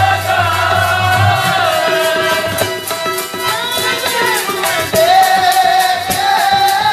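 Sikh kirtan: male voices singing a shabad over steady harmonium notes, with tabla strokes and a deep bass-drum note from the tabla near the start.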